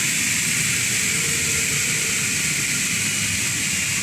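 Double-head aluminium cutting saw running after a cut, its motor and spinning blade giving a steady whirring hiss that does not change.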